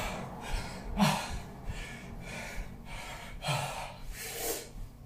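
A man breathing hard and gasping from exertion near the end of a bodyweight exercise set, a run of heavy breaths about one to two a second.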